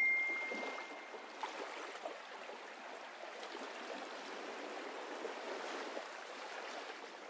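A short, high ding that fades out after about a second, then a faint, steady rushing noise like flowing water.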